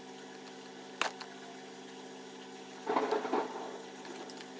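Clear plastic storage box being handled: one sharp plastic click about a second in, then a short scraping rattle around three seconds in as the lid is shifted. A steady hum runs underneath.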